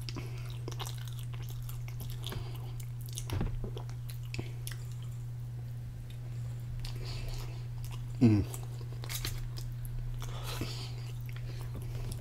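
Close-up mouth sounds of a person chewing a mouthful of wrap: small wet smacks and clicks, over a steady low hum. About eight seconds in comes a brief, louder vocal sound that falls in pitch.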